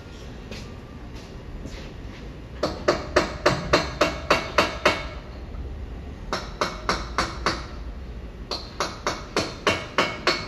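Hammer blows on metal in three quick runs of rapid strikes, about four or five a second: about ten strikes, then five, then eight.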